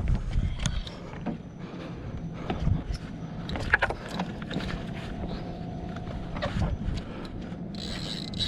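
Fishing tackle handled while a hooked snook is being fought on a spinning reel: irregular clicks, knocks and low thumps, with a faint steady hum through the middle and a faint high whine near the end.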